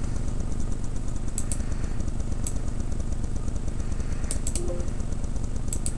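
Steady low hum with a few sharp, light clicks scattered through it, some in quick pairs and threes.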